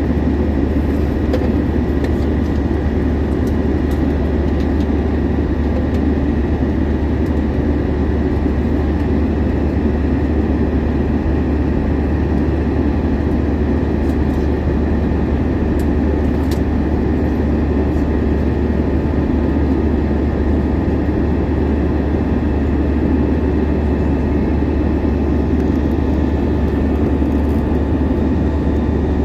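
Steady jet engine and airflow noise heard inside the cabin of an Airbus A321-200 in flight: a deep, even drone with a faint high whine.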